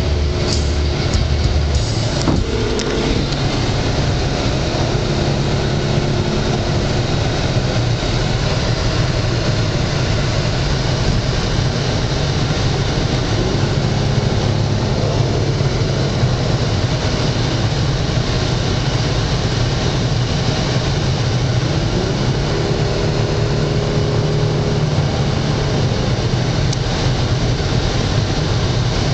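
Dodge Charger heard from inside the cabin while cruising on the highway: a steady low engine and road drone with tyre noise.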